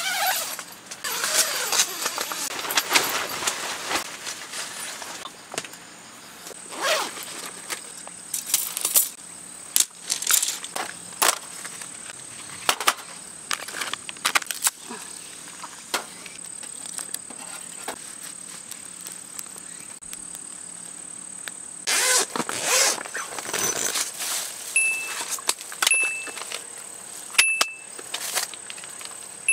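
Intermittent clicks, knocks and clatter of things being handled, over a steady high insect trill. Near the end a few short, high beeps sound.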